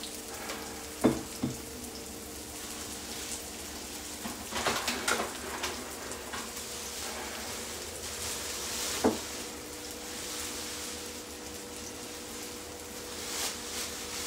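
Chopped onions and garlic sizzling steadily in a frying pan. A few sharp knocks of cookware ring out, the loudest about a second in and another about nine seconds in, with a short spell of stirring noises around five seconds in.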